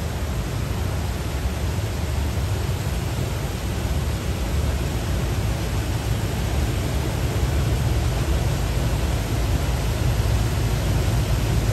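Gantry-type automatic car wash at work on a car: rotating cloth side brushes scrubbing the body amid water spray, a steady rushing noise with a deep rumble underneath that grows slowly louder.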